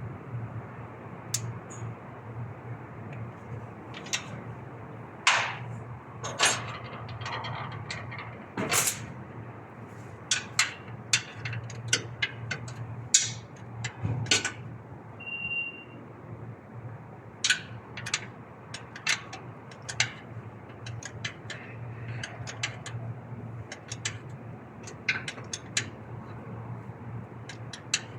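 Irregular metallic clicks, clinks and knocks of hand tools and parts being handled during repair work, over a steady low hum. A short high beep sounds about halfway through.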